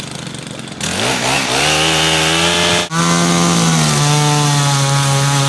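Chainsaw engine idling, then revving up to full throttle about a second in and holding a steady high pitch, with a brief dip near the three-second mark. The revs begin to fall near the end.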